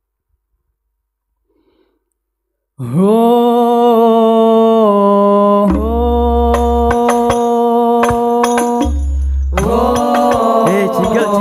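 Near silence for the first few seconds, then a solo male voice opens a sholawat with long held sung notes. About halfway a low hum and scattered hadroh frame-drum strikes come in, and near the end several voices join in an ornamented chant.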